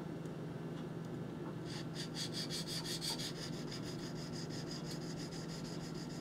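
Steel knife blade being stroked back and forth on a wet whetstone, a fast, even scraping rhythm that starts about two seconds in.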